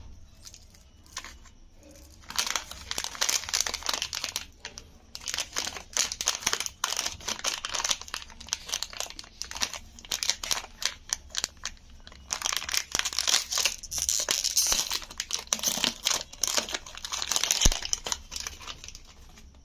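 Plastic wrapper of a Chupa Chups lollipop crinkling as it is handled and pulled off the sweet. It comes in spells of crackling with short pauses, loudest just before the end.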